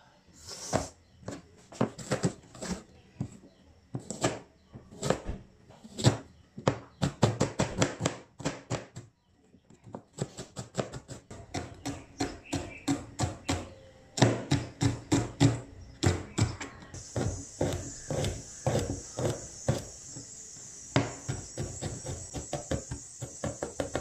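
Chef's knife chopping onion, green chillies and garlic on a plastic cutting board: irregular runs of quick knocks on the board. A steady hiss joins about two thirds of the way in.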